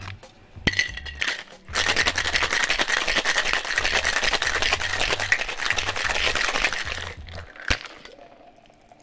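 Ice rattling hard inside a Boston shaker, a metal tin sealed over a mixing glass, as a cocktail is shaken for about five seconds. Just before, a knock as the tin is pressed onto the glass; near the end, one sharp knock. Background music with a low beat underneath.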